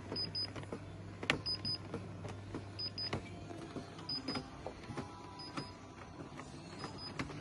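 Genesis massage chair's electric recline motor running with a steady hum as the seat tilts back, mixed with scattered clicks and knocks from the chair's massage mechanism.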